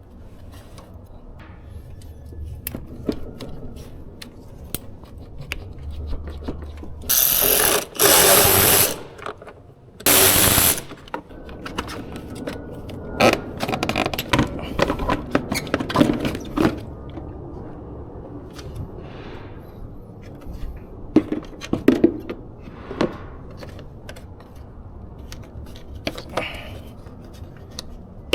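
Hand tools clicking and clinking on metal engine parts, with scattered ratchet-like clicks. Three loud rushing bursts, each about a second long, come a third of the way in.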